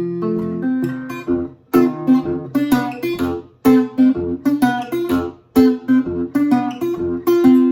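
Acoustic guitar playing an instrumental blues passage: picked treble notes over a bass line.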